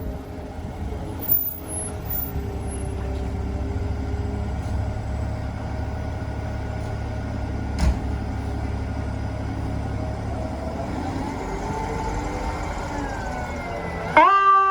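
Fire truck's diesel engine running with a steady low rumble, while a siren winds up, rising in pitch over the last few seconds. A loud air horn blast starts just before the end.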